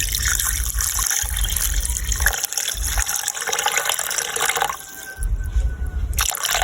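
Tap water running into a bowl of chicken necks as they are rinsed. The flow dips for a moment about five seconds in, then starts again.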